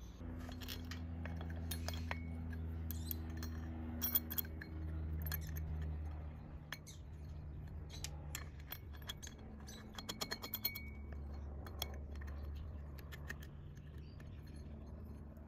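Light metallic clinks of steel washers being handled and fitted onto a scooter's crankshaft stub at the variator pulley: scattered sharp ticks, the loudest about four seconds in and a quick run of them around ten seconds in, over a low steady hum.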